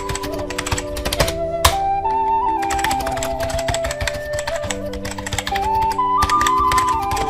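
Background music: a flute melody moving in held steps over sustained lower notes, with rapid clicking like typing running throughout.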